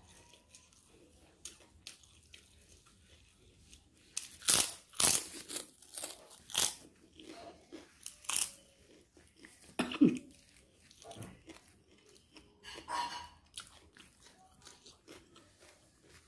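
Close-miked mouth sounds of a person chewing and crunching lumps of cooked fat. A run of loud crunches comes about four seconds in and lasts to about nine seconds, with a single loud crunch near ten seconds and more around thirteen seconds.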